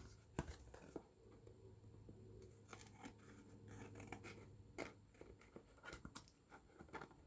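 Faint, scattered snips and clicks of trimming the edge off a children's book's cardboard cover board, with a low steady hum underneath.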